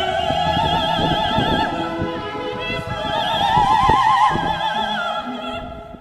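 Background music: an operatic soprano holding long, high notes with wide vibrato. The highest and loudest note comes about four seconds in, and the music fades near the end.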